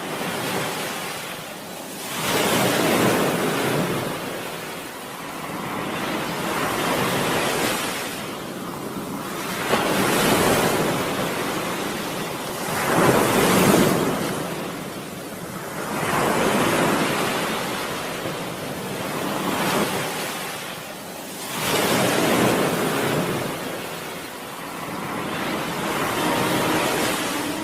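Sea waves breaking and washing in, swelling and falling away about every three seconds.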